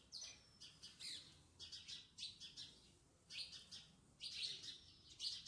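Spoon stirring sugar into grated raw mango in a metal saucepan: faint, gritty scraping strokes in short uneven runs with brief pauses.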